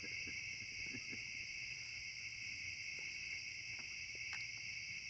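Steady high-pitched chorus of night insects, with a few faint ticks over it.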